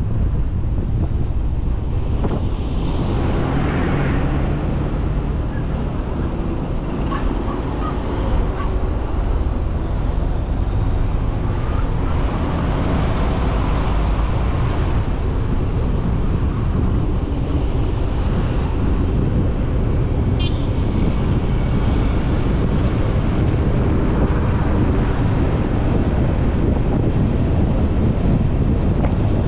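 Steady road and wind noise from a car driving along a highway, swelling a few times as other vehicles pass.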